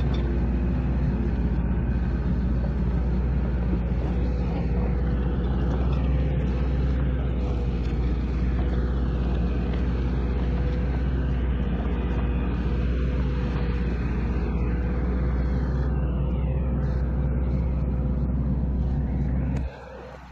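Isuzu NPS 75-155 4x4 truck's turbo-diesel engine running steadily: a deep, even hum with a steady whine above it. The sound drops away abruptly just before the end.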